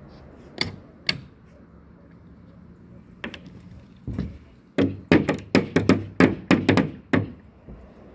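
Claw hammers striking on plywood slab-roof formwork: a few scattered blows, then a quick run of about a dozen blows, about five a second, in the second half.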